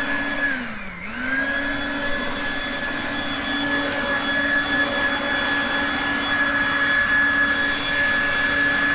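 Corded electric garden vacuum and leaf blower running with a steady motor whine. About a second in, the motor briefly slows, dropping in pitch, then picks back up to speed.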